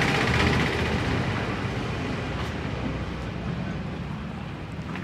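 Motor vehicle engine running with a steady low rumble, slowly getting quieter.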